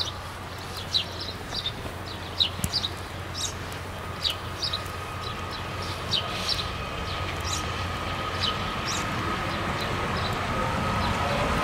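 A Matterhorn Gotthard Bahn train approaching: a steady whine rises from about halfway through, and the rumble grows steadily louder. Small birds chirp repeatedly over it, mostly in the first part.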